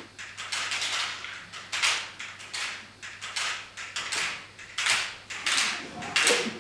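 Fanned bundles of thin slats shaken and swished in rhythm by several performers, giving short rattling swishes about two a second.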